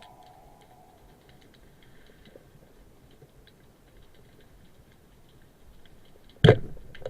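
Faint, irregular ticking and crackling, as picked up by an underwater camera, with music fading out in the first second. About six and a half seconds in, a sudden loud thump.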